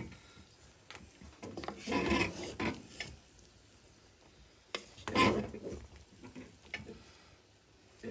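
Wooden spatula stirring and scraping through cooked biryani rice in a metal pot, with louder scrapes about two seconds in and again about five seconds in.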